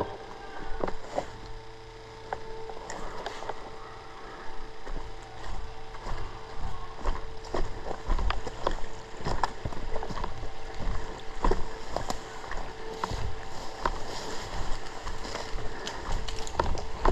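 Movement and handling noise from an airsoft player out on the field: scattered clicks and knocks with rustling and low thuds, over a faint steady hum.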